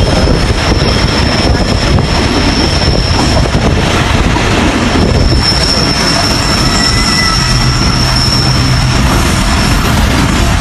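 Passenger train running, heard from an open carriage window: a steady rumble and rush of wheels on track, with a thin, high wheel squeal as the train takes a curve. The squeal holds for a few seconds, breaks off, and comes back for several more.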